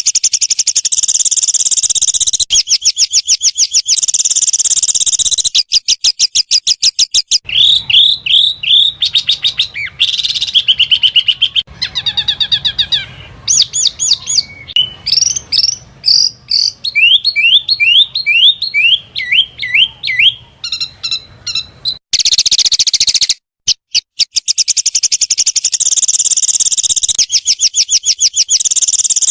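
Small songbirds giving loud, rapid-fire chirps and trills: fast runs of repeated high notes and quick rising slurs. The song switches abruptly from one bird's phrase to another's several times.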